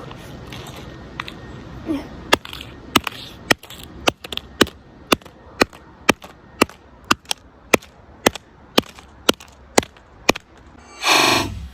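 A hammer striking an iPhone 7 over and over: about sixteen sharp blows at a steady two a second. Near the end comes a louder, longer noisy burst that falls in pitch.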